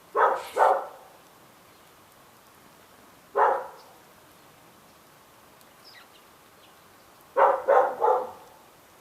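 A dog barking: two quick barks, a single bark about three seconds in, then three quick barks near the end. Faint short bird chirps sound between them.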